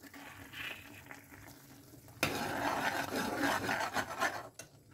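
Metal spoon stirring and scraping thick tomato-onion masala around an aluminium pan, starting suddenly about two seconds in and stopping shortly before the end. Before the stirring, only the faint hiss of the masala simmering in the pan.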